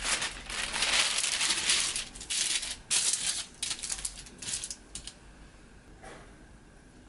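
A sheet of parchment paper rustling and crinkling as it is laid onto a metal baking tray and pressed flat by hand. It comes in a run of uneven bursts and stops about five seconds in.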